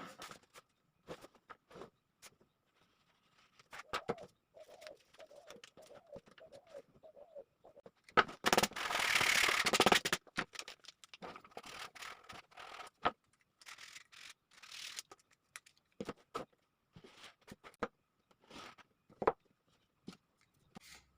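Scattered small clicks and knocks, with a dove cooing in the background in a run of low wavering notes about four to seven seconds in. A loud rush of noise lasting about two seconds comes just after the middle.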